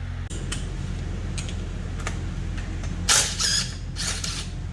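Scattered metallic clicks, then two louder scraping rattles about three and four seconds in, as tools or engine parts are handled, over a steady low hum.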